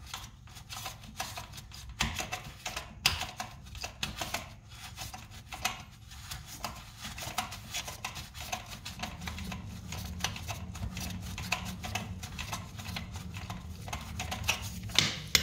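A toilet-seat fixing nut being unscrewed by a gloved hand from the seat bolt under a ceramic bowl: irregular small clicks and scrapes of the nut turning on the bolt thread and fingers working against the bowl.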